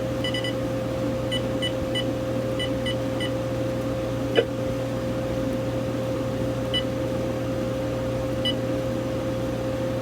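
Uniden EXAI7980 cordless phone's key beeps as its buttons are pressed: a quick run of seven short, high beeps, then two single beeps later, with one click about four and a half seconds in. A steady hum runs underneath.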